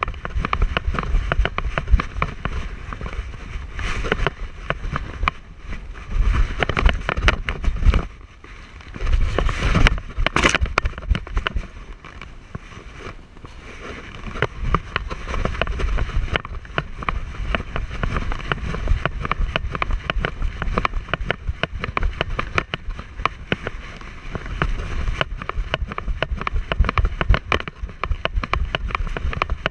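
Wind rumble on a camera mounted on a dog's head, with dense rapid rustling and clicking from the mount and the dog's movement as he trots over a gravel trail. It dips briefly about eight seconds in.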